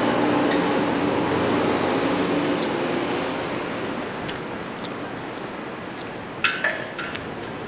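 Street traffic noise, with a vehicle's engine hum fading away over the first few seconds, then a few sharp metallic clinks about six and a half seconds in.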